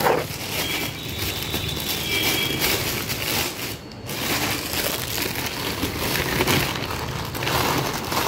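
Plastic bag crinkling and rustling as the dried herbs and roots inside it are handled, with a brief lull about halfway through.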